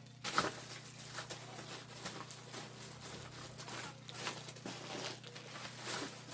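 Rustling and light knocks of supplies being handled and packed, in irregular strokes several times a second, the loudest about half a second in.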